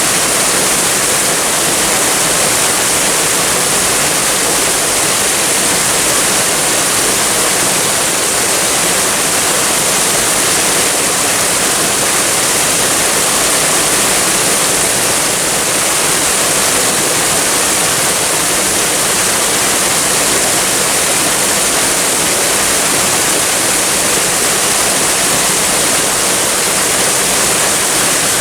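Waterfall with flowing water: a steady, unbroken rush of falling water, strongest in the high hiss.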